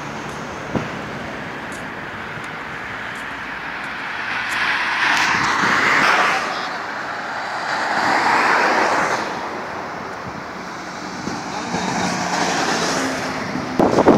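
Road traffic passing on a multi-lane road: a steady rush of tyres and engines, with vehicles swelling past about five seconds in, again around eight seconds, and once more near twelve seconds.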